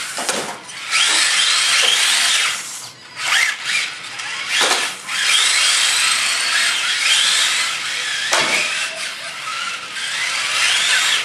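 Electric motors of two Tamiya TT-01E radio-controlled touring cars, Axial 20-turn brushed motors, whining as the throttle is worked, pitch rising and falling again and again. The whine rides on a steady hiss of drifting tyres sliding on concrete.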